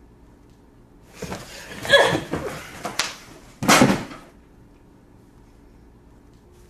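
Two loud, short rushing noises about two seconds apart, the first longer, with a sharp click between them.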